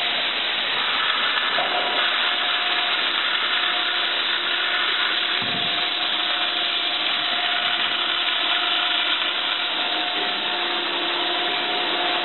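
Amfec 510 mixer unloading birdseed: seed pours out of its discharge gates in a steady hiss, over the steady hum of the running machine.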